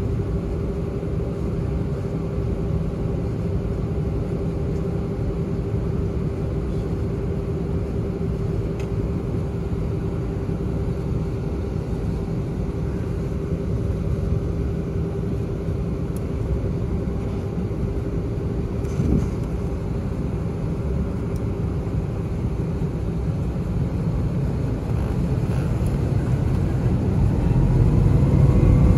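Cabin sound of an Airbus A320 with IAE V2500 engines at low power: a steady low rumble with a constant hum. In the last few seconds the engines start to spool up, a rising whine over a growing rumble as takeoff thrust comes on.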